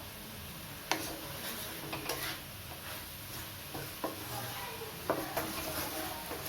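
Cooking utensil knocking and scraping against a pot while the food is stirred, with a few sharp clinks spaced a second or so apart.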